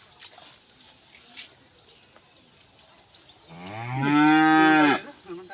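A cow mooing: one long call starting about three and a half seconds in, rising a little in pitch and then dropping away before it stops.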